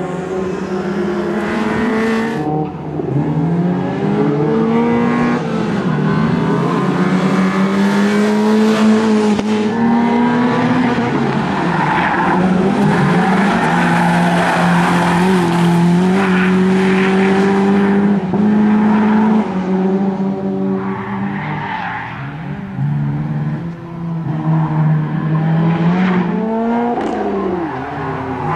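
BMW E30 318is's four-cylinder 16-valve engine being driven hard, its pitch climbing and dropping again and again through gear changes and braking, with tyres squealing on tarmac through the corners.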